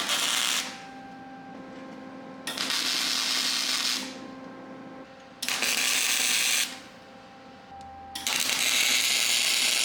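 Welder laying short welds: four bursts of hissing welding noise, each about one to one and a half seconds long, with short quiet gaps between.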